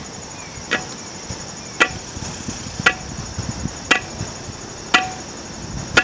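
Six sharp knocks about once a second, each with a brief ring. Under them is a steady high insect chorus.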